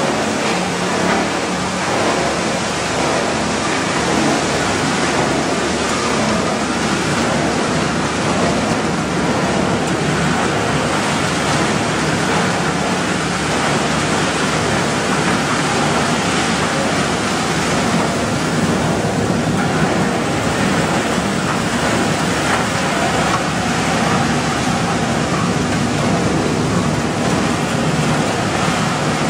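PET bottle recycling line machinery running with a steady, even noise as shredded plastic flakes are thrown out of the machine's outlet.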